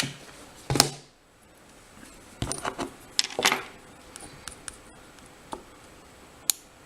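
Scattered small metal clicks and taps as tweezers pick out and set down the tiny pins of a disassembled Corbin euro cylinder lock, with a few louder clicks in the first few seconds and fainter ones after.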